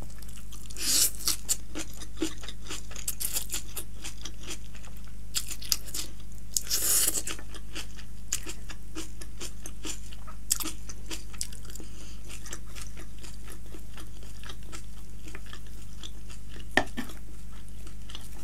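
Close-miked eating of chow mein noodles: two longer slurps, about a second in and again around seven seconds, then chewing with many small wet clicks and an occasional clink of the fork, over a steady low hum.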